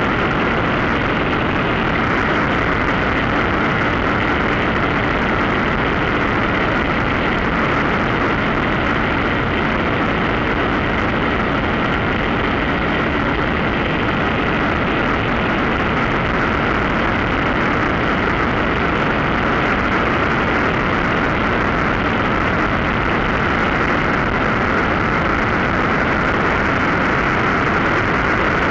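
Mosquito NRG hang-glider harness motor running steadily under power in flight, its pusher propeller droning at a constant pitch with airflow noise.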